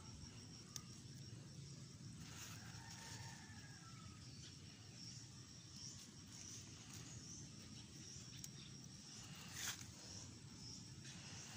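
Faint rural outdoor ambience with a steady high insect drone. A few light clicks and leaf rustles come from chili plants being handled and pods snapped off, the loudest about ten seconds in.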